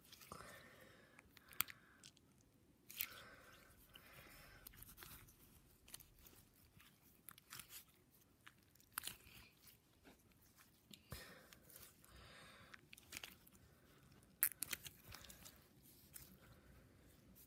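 Slime being squeezed and poked by hand: faint, irregular sticky clicks, pops and crackles, with one sharper pop near the end.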